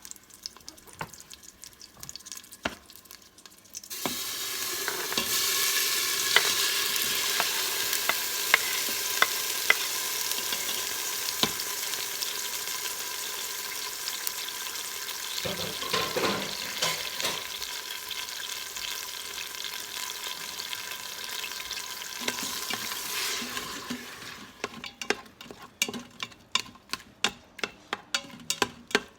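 Food sizzling and frying in hot oil in an Instant Pot on sauté, starting suddenly about four seconds in as it goes into the pot and dying away near the end, with a spoon clicking against the pot as it is stirred. Near the end, a quick run of regular clicks.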